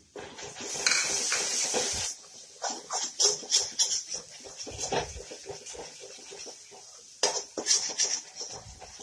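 Perforated metal skimmer scraping and tapping against a metal kadhai while stirring an onion and spice masala. There is a dense rasp lasting about a second near the start, then a string of short scrapes and taps.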